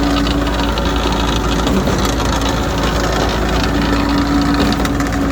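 Engine of the concrete pumping and finishing machinery running steadily, with a constant droning tone and no change in speed.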